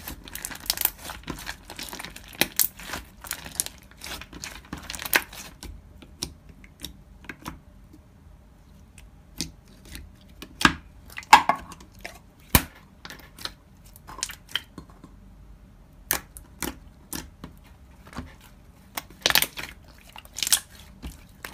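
Slime being squeezed and poked by hand, giving irregular sticky clicks and crackling pops, busier at the start and near the end and sparse in the middle.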